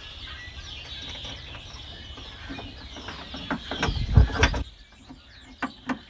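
Small metal hood-latch parts clicking and knocking as they are handled and test-fitted, with a cluster of clunks about four seconds in, the loudest near the middle of it. Birds chirp in the background.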